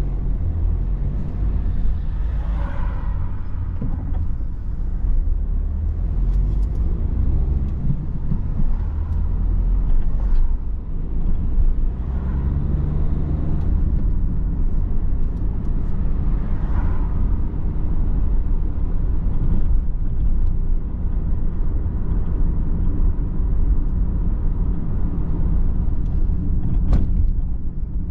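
Car driving on a town road, heard from inside the cabin: a steady low rumble of engine and tyres, with a few brief swells in the noise and a single sharp click near the end.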